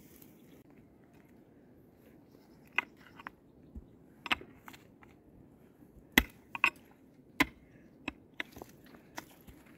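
A long-handled pick striking stony soil: a series of sharp, irregular crunching blows, about eight, the loudest a little past the middle.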